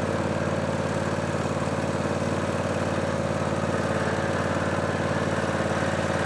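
Zero-turn riding lawn mower's engine running steadily at an even speed.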